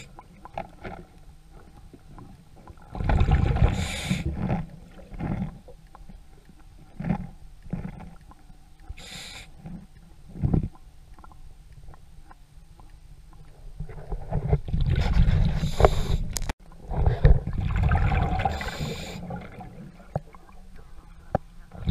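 A scuba diver breathing through a regulator, heard underwater: long rushes of exhaled bubbles a few seconds in and twice more near the end, with faint clicks and knocks between.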